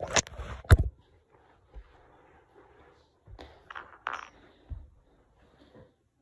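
Handling noise close to the microphone: two sharp knocks in the first second, then soft rustling and a few smaller knocks about three to five seconds in.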